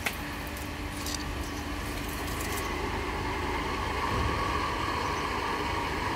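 Small electric centrifugal water pump switched on with a click and running steadily, a constant motor hum over a rushing noise that builds slightly over the first few seconds.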